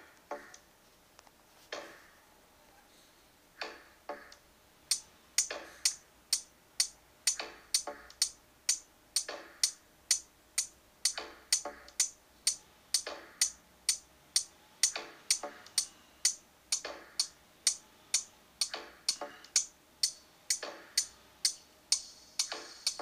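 Electronic drum-machine percussion from an Ableton Live set: a few scattered sharp clicky hits, then from about five seconds in a steady, evenly spaced beat of bright ticking hits at about two a second, with no bass or kick drum.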